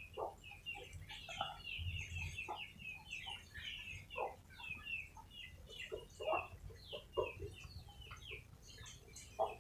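Chickens clucking, with a dense run of many short, high chirps and a few lower clucks scattered throughout.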